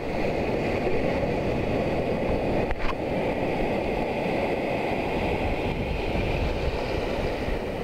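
Ocean surf breaking and foaming whitewater washing around the shallows, a steady rush with a deep rumble underneath. A brief click about three seconds in.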